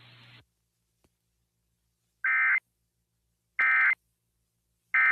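Emergency Alert System End-of-Message signal: three short bursts of buzzy digital data tones, about a second and a half apart, beginning about two seconds in after near silence. The bursts mark the end of the alert.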